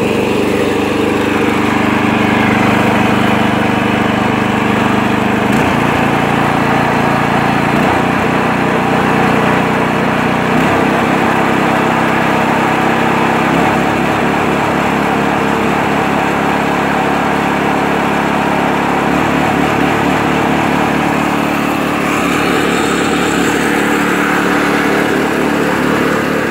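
Predator 212cc single-cylinder four-stroke engine on a snowblower running with no choke in cold air, its carburetor fitted with an adjustable main jet; its speed shifts up and down in steps several times. It runs smoothly without choke, the sign that the adjustable main jet gives the mixture enough fuel for cold weather.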